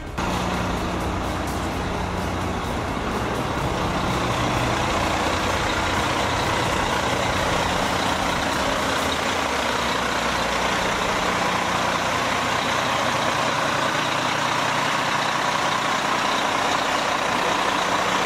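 Fire truck's diesel engine running, loud and steady, with a low engine hum clearest in the first few seconds.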